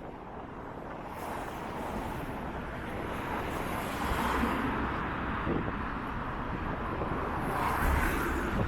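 Road traffic going by on a town street, with two cars swelling past. Wind rumbles on the microphone underneath.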